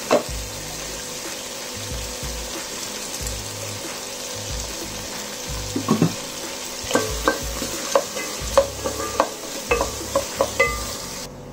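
Chopped onions, tomatoes and green chillies sizzling steadily in hot oil in a nonstick kadai, being sautéed. From about six seconds in, a wooden spatula stirs them, with a run of knocks and scrapes against the pan. The sizzle cuts off just before the end.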